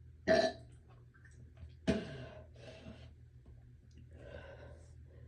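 A person gagging and burping: two short, sudden retching burps about a second and a half apart, then a few breaths.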